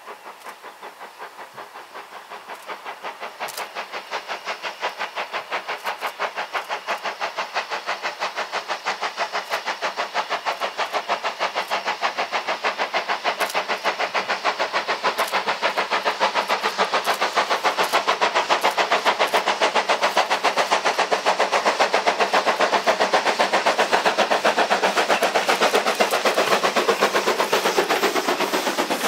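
Steam locomotive, an Ivatt Class 2MT 2-6-0, chuffing with steady rapid exhaust beats. The beats grow louder as it approaches and pitch falls as it draws level near the end.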